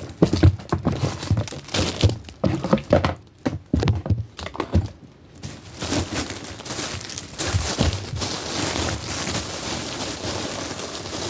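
Gear being handled and packed into a bag: crinkling and rustling with short knocks and thunks of items being set down, turning into a steadier rustle after about six seconds.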